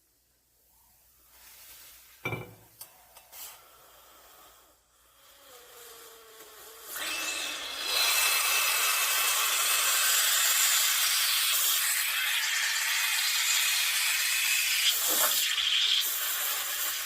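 Espresso machine steam wand hissing steadily, building up from about five seconds in and at full strength from about seven seconds in. A sharp click comes a couple of seconds in.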